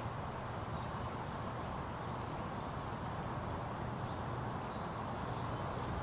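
Steady low rushing ambience with a few faint, short bird chirps above it.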